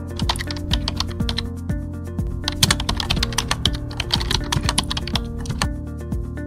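Keyboard-typing sound effect: a quick run of clicks, thickest in the middle, accompanying on-screen text being typed out, over background music with steady held notes.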